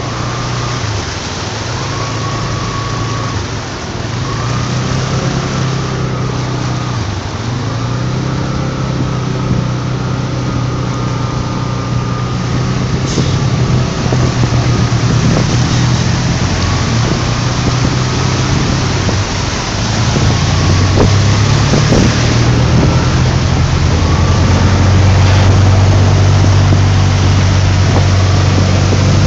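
Road vehicle engines running while driving through floodwater, over a steady hiss of water spray. The engine pitch dips and rises several times with the throttle, and the sound grows louder toward the end.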